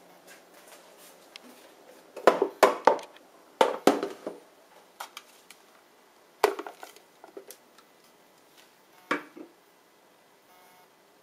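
Hard plastic parts of a Sharp EJCP10BJR slow juicer knocking and clattering as they are handled and taken apart, with its pulp-packed bowl over a stainless sink. The clatter comes in four short bursts, the loudest two close together in the first half.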